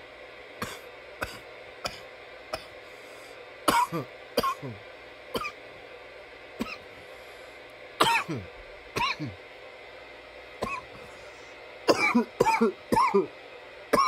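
A man coughing repeatedly: a few light single coughs, then louder coughs in twos and threes, with a run of several hard coughs near the end.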